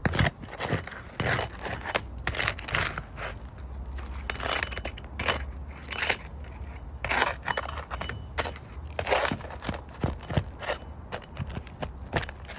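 Brittle asphalt shingles cracking and scraping in irregular bursts as they are worked loose and their nails pulled; the shingles break because they are too brittle to repair.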